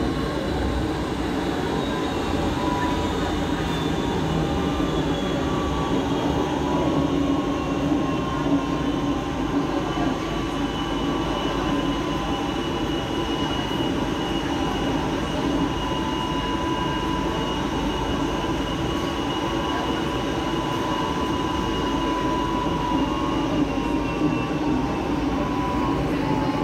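Barcelona Metro Line 1 Series 4000 train running at speed through a tunnel, heard from inside the carriage: a steady rumble of wheels on rail with a faint high whine held through much of it, dipping slightly in pitch near the end.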